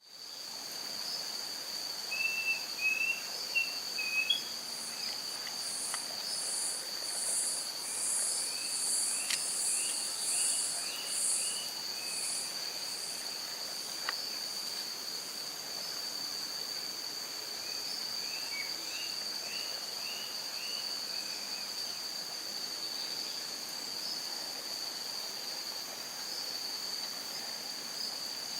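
Forest insects: a steady high-pitched buzz throughout, with a pulsing trill over the first half. Over them come short bird whistles: a few loud notes early on, then twice a quick run of rising notes.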